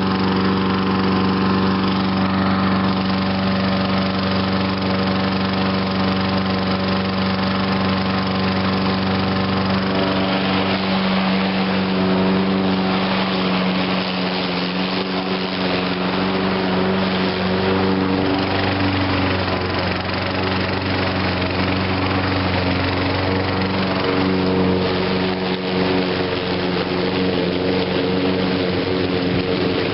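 Toro Recycler lawn mower's 6.5 hp Tecumseh engine running steadily. Its note shifts a little between about ten and twenty seconds in.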